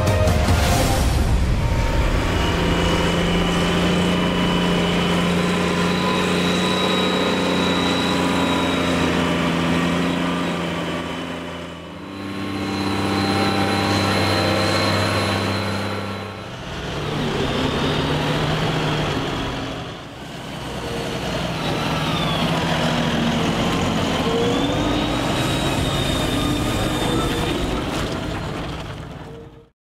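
Diesel farm tractors running in a string of short clips, a steady engine hum with a high whine over it; the sound dips and changes three times as the clips change, and fades out at the very end.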